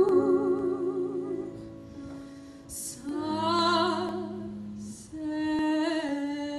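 A woman singing in a trained, opera-like style, holding long notes with vibrato over a keyboard accompaniment. The line eases off around two seconds in and comes back with new held notes about a second later.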